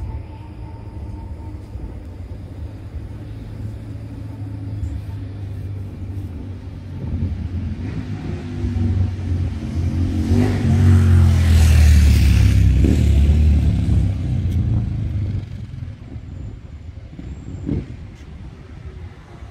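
Modern low-floor city tram running past close by on newly laid grass track: a low rumble that builds to its loudest a little past halfway, with a brief rising and falling whine, then fades away.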